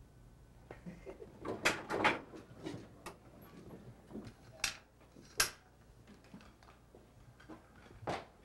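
A string of sharp knocks and clacks, about five loud ones over eight seconds, with muffled rustling between them, in a small elevator car.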